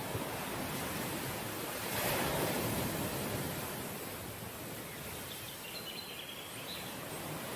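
Steady outdoor wash of wind and sea, an even hiss that swells briefly about two seconds in.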